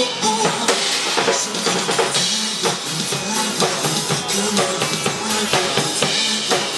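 Live band music without vocals: a drum kit keeps a steady beat of bass drum and snare under held instrumental notes.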